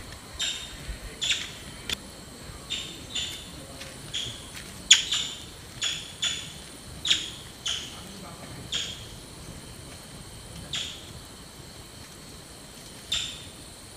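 A run of short, sharp, high-pitched animal calls, at first nearly two a second, then thinning to a few widely spaced ones, over a faint steady high hum.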